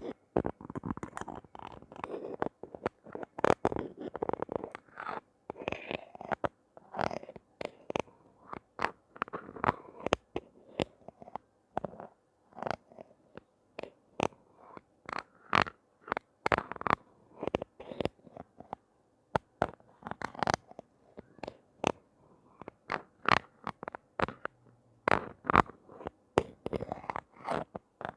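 Close-up handling noises of a toy being unboxed: an irregular run of sharp taps and clicks, with crinkling and scraping between them.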